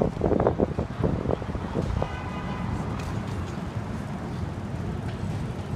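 Street traffic: a steady low rumble of passing vehicles, with a brief high-pitched tone about two seconds in.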